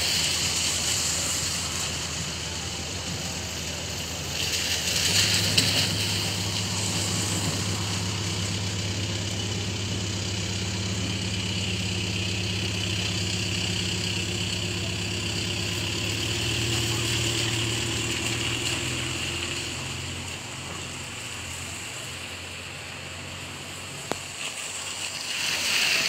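Steady hiss of heavy rain with a vehicle engine running nearby, its low hum coming in about five seconds in and fading out about twenty seconds in.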